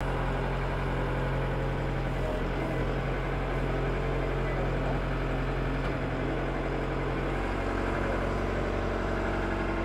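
Heavy machine's diesel engine idling steadily, its note shifting slightly about seven and a half seconds in.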